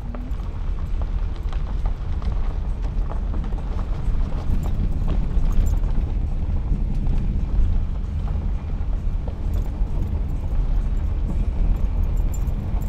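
Car driving on a gravel road: a steady low rumble of tyres and road noise, with scattered clicks of gravel crunching and popping under the wheels.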